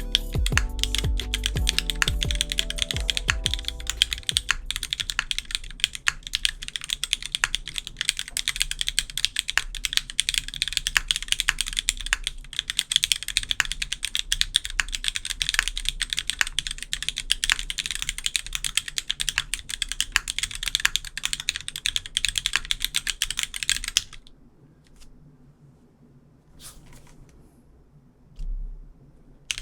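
Fast, continuous typing on a custom mechanical keyboard fitted with DCS-profile keycaps, a dense clacky patter of keystrokes. The typing stops about 24 seconds in, leaving only a few single key clicks and a low bump, while music fades out in the first few seconds.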